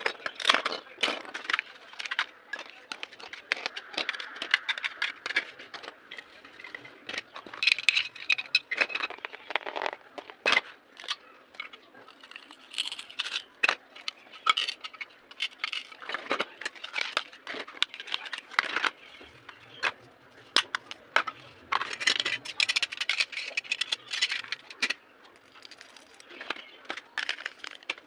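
Toy packaging and plastic parts being handled during unboxing: irregular crinkling, crackling and clicking with small rattles throughout.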